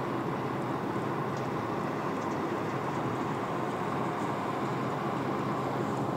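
Steady road noise of a car driving at highway speed, heard from inside the cabin: an even drone of tyres and engine.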